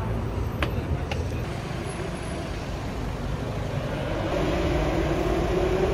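Street traffic noise with a steady low rumble. A vehicle engine hum grows a little louder from about two-thirds of the way in, and there are two light clicks in the first second.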